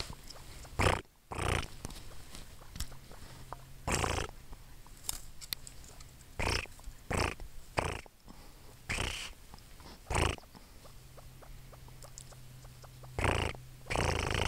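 Ruffed grouse perched at close range giving about ten short, soft calls, each under half a second and spaced irregularly, some in quick pairs.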